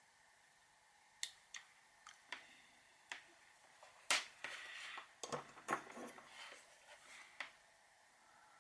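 Faint, scattered clicks and taps of small hard plastic parts being handled, about a dozen over several seconds. The loudest click, about four seconds in, is followed by a brief scraping rustle.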